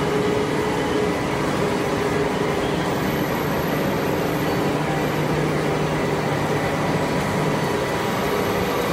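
Steady factory machinery noise: a continuous mechanical hum and hiss with a few faint steady tones, from machine tools running in a metalworking shop.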